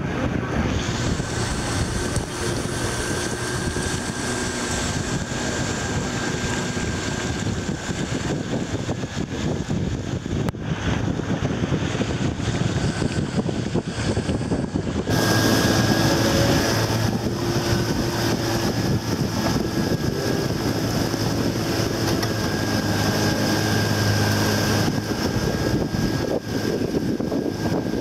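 Rushing river water and wind buffeting the microphone aboard an inflatable raft on the river, with a faint steady hum underneath. The sound changes abruptly twice, about ten and fifteen seconds in.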